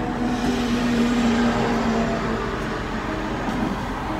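Car idling, a steady hum heard from inside the car.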